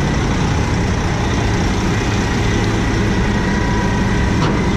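Diesel engine of a Sterling boom truck idling steadily, with a thin steady whine above the engine note.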